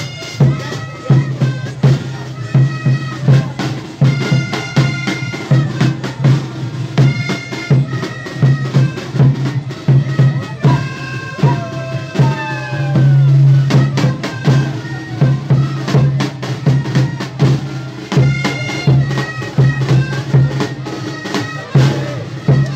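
Live tarqueada music: a band of tarka flutes playing a reedy, bagpipe-like melody in unison over steady beats of caja drums. A few notes slide downward about halfway through.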